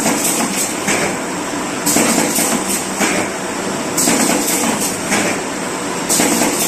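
Automatic corrugated-cardboard partition assembling machine running, with a sharp noisy stroke about every two seconds as it cycles through its assembly motions.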